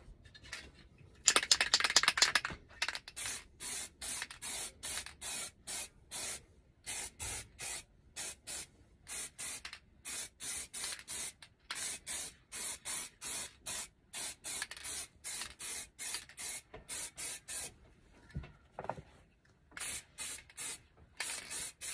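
Aerosol spray paint can: about a second in there is a loud rattle, the mixing ball as the can is shaken. Then comes a long run of short spray bursts, about two a second, with brief pauses.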